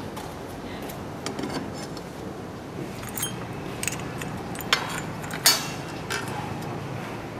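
Metal clinks and knocks as a large steel circular saw blade and its clamping flange are fitted onto the arbor of a saw blade grinding machine, with two sharper metallic knocks a little past halfway.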